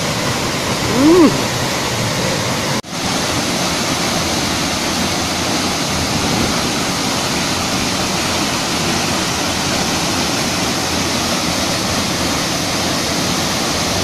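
Waterfall about 10–15 m high plunging into a shallow rocky pool: a steady, dense rush of falling water. A short voice call rises and falls about a second in, and the sound briefly cuts out near three seconds in.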